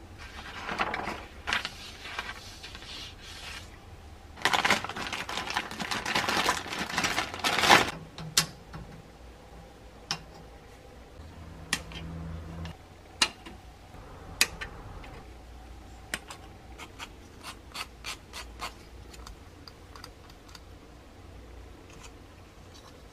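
Paper sheets of a plastic model kit rustling as they are handled, in two loud stretches, then a string of sharp plastic clicks and ticks as the kit's plastic parts are handled and trimmed from the sprue with a hobby knife, coming quicker near the end.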